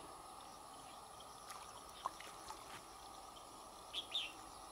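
A bird gives one short two-note call near the end, over faint, steady outdoor background noise. A few faint ticks come in the middle.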